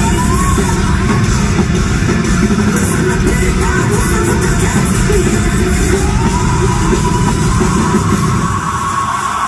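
Loud live heavy metal band of guitars, drums and singing, heard from the crowd in a large concert hall.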